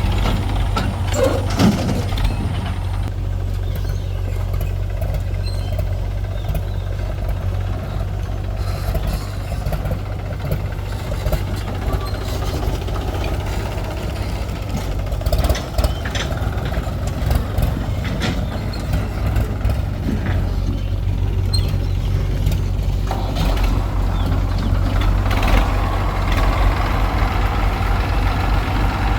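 Diesel engines of a JCB 3DX backhoe loader and a Mahindra tractor running steadily while digging and loading mud, with occasional short knocks.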